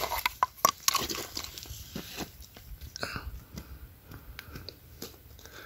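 Handling noises: a string of short clicks and light knocks as a white plastic specimen vial is opened and a small rock specimen is tipped out of it into the hand, busiest in the first second.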